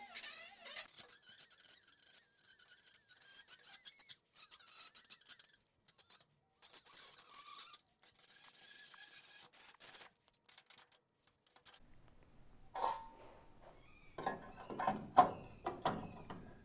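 Small abrasive wheel on a hand-held power tool scrubbing rusty sheet steel in short bursts, with a thin squeal as it rubs. From about 13 s in come louder metallic knocks and scrapes as a sheet-metal panel is handled against the body, the loudest a sharp knock near 15 s.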